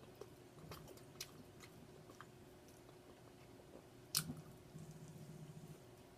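Quiet chewing of food, with soft wet mouth clicks and one sharper click about four seconds in.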